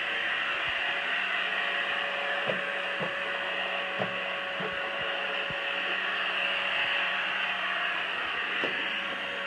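Pure Clean robot vacuum running on carpet: a steady whir with a low hum, broken by a few light knocks about two and a half, three, four and five and a half seconds in.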